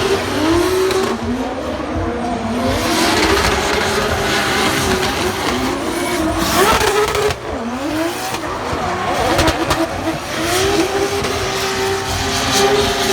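Drift car engine revving hard, its pitch climbing and dropping again and again as the driver works the throttle, with tyres squealing.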